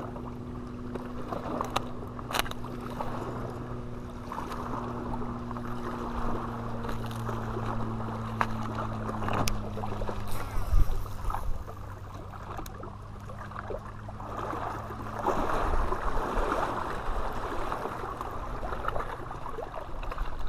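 A distant engine's steady low hum, fading out about halfway, under a constant rough rustle with scattered small clicks and one sharp knock near the middle.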